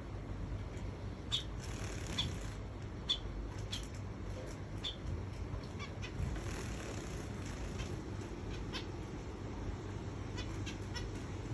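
Pet finches giving short, high calls at irregular intervals, about a dozen in all, over a low steady background hum.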